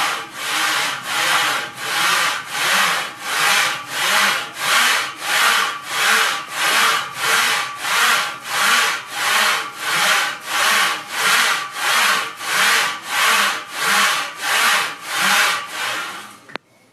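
Moving parts of a forward-and-back monkey-bar exercise rig, worked steadily during a set: a loud, rhythmic rubbing stroke about twice a second. It stops suddenly near the end.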